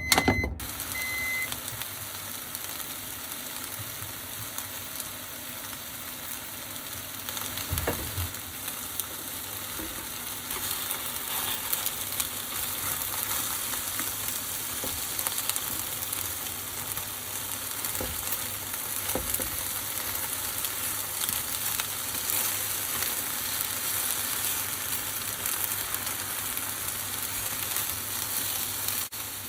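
Food sizzling in hot oil in a frying pan, starting suddenly at the start and then running as an even hiss, with a few knocks of a utensil against the pan as it is stirred.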